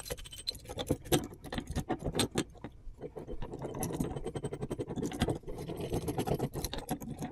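Three-jaw gear puller being handled and fitted into place: its loose hinged steel jaws clink and rattle against each other and knock on the board in a run of irregular light clicks.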